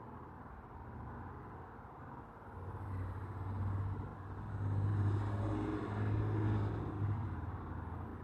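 Low rumble of a motor vehicle passing unseen, swelling from about two and a half seconds in and fading near the end, with a faint hiss at its loudest.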